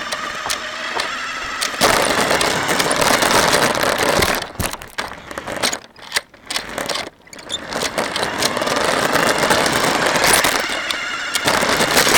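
A radio-controlled car's motor whining and its wheels rattling over the ground, heard through a camera mounted on the car. The car runs in loud rough bursts with brief pauses between them, and a sharp knock comes at the very end.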